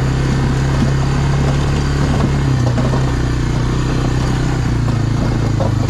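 1999 Honda FourTrax 300 ATV's single-cylinder four-stroke engine running steadily while riding slowly. Its pitch dips slightly in the middle and picks back up near the end.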